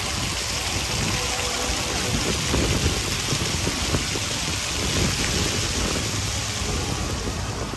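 Steady, dense din of a large outdoor crowd, with no single voice standing out.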